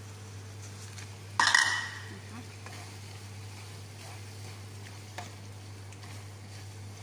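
A wooden spatula stirring eggplant and egg in a frying pan, with a faint sizzle. About a second and a half in there is a sudden loud clatter of cookware with a short ring, and a few light clicks of the spatula follow.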